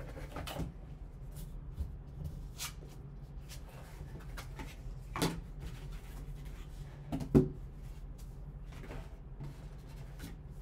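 Cardboard card box being opened and handled with gloved hands: scattered light knocks and scrapes of the lid and foam insert over a low steady hum, the sharpest knock about seven seconds in.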